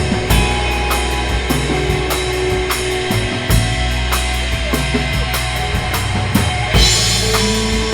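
Rock band playing live, the drum kit to the fore: a steady beat of bass drum and cymbals over held notes from the other instruments, with a cymbal crash about seven seconds in.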